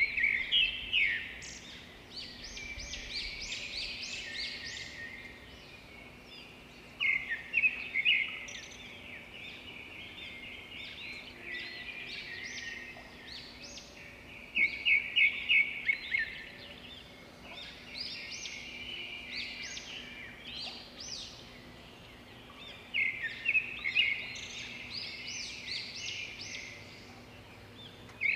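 Birds chirping: bursts of rapid, high chirps about every seven or eight seconds, with lighter chirping in between.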